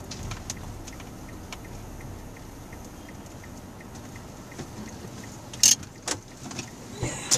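Steady low rumble of a car cabin as the car creeps along slowly, with faint ticking at an even pace. Two sharp clicks, the loudest sounds, come close together a little after the middle, and another near the end.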